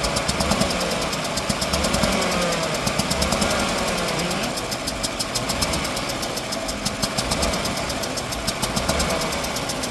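Pickup truck's freshly replaced engine running with a rapid, regular ticking pulse, its revs rising and falling a little. The men take the noise for an exhaust leak.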